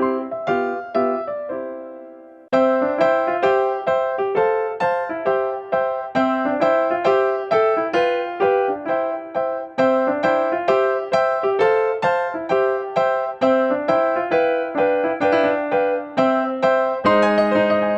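Background music: a light keyboard tune of short piano-like notes that each fade away. It stops for about a second, a last note dying out, then starts again about two and a half seconds in.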